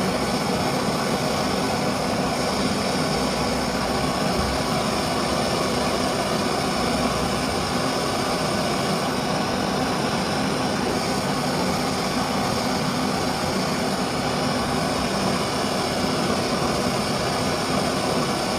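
Kerosene pressure stove (Primus-type babur) burning with a steady, even rushing noise that stays at one level throughout.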